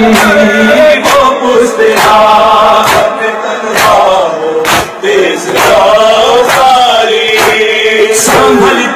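A male reciter chanting a mournful Urdu noha into a microphone, with mourners' chest-beating (matam) slaps keeping a steady beat about twice a second.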